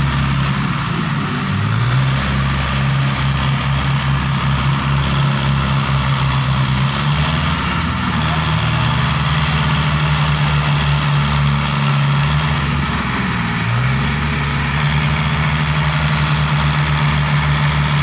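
Tractor diesel engine running hard, pulling a fully loaded sugarcane trailer through soft field soil. It has a steady low throb, and its note rises as it is revved up about a second and a half in, around seven seconds, and again near fourteen seconds.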